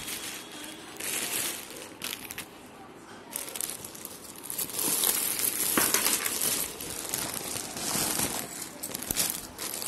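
Plastic packaging bags crinkling and rustling in irregular bursts as they are handled and opened.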